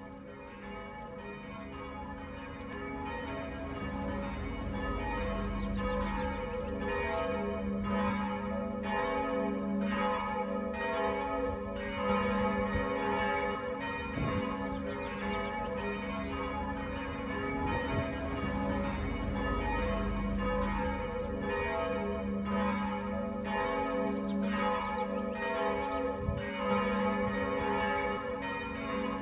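Several church bells ringing together, their strokes overlapping at about two a second. The ringing swells over the first few seconds and then carries on evenly.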